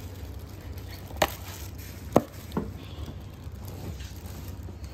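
Three sharp taps and clicks of cardboard takeaway boxes being handled and flipped open, the second the loudest.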